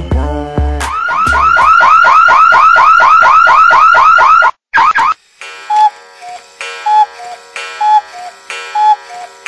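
Electronic music intro: after a short beat, a rapid run of rising alarm-like whoops, about four to five a second, lasts some three seconds. After a brief break, two electronic beeps, one high and one low, alternate about twice a second.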